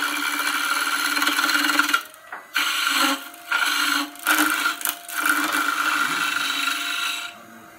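Skew chisel taking a peeling cut on wood spinning in a lathe: steady cutting noise, broken by several short lifts of the tool in the middle and stopping shortly before the end, leaving the lathe's motor hum.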